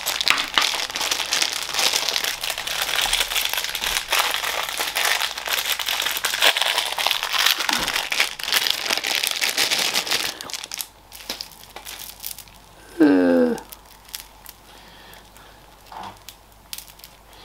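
Continuous crinkling and rustling of something being handled, which thins out to faint, scattered handling noises after about ten seconds. A short hummed vocal sound, the loudest moment, comes about two-thirds of the way through.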